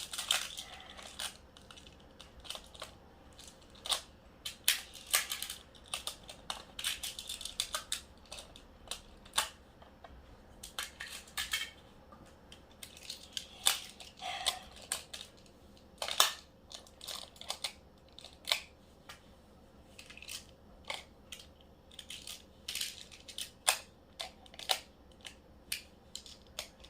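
Plastic magnetic building tiles clicking and clattering as they are handled and snapped together, in irregular sharp clicks with short gaps between them.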